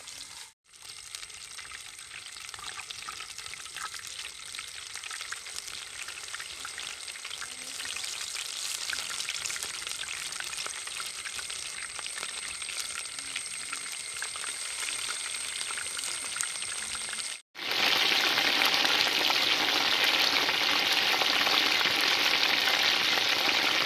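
Battered chicken wings (chicken lollipops) deep-frying in hot oil in a wide aluminium pan, sizzling steadily. The sound drops out briefly near the start and again about two-thirds of the way in, and comes back louder after the second break.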